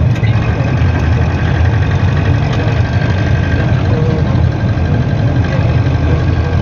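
Steady low engine and road rumble heard from inside the cabin of a car that is being driven.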